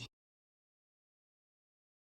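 Silence: a gap with no sound between spoken lines.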